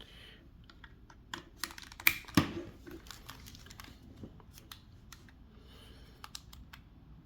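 Scattered small plastic clicks and knocks as a crimped RJ45 plug is pushed into an Ethernet cable tester and the tester is handled, with the two loudest about two seconds in.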